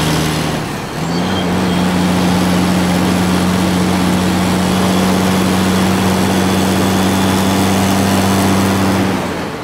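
Heavy diesel vehicle engine running steadily, its pitch stepping up about a second in as it revs higher, then holding level before fading near the end.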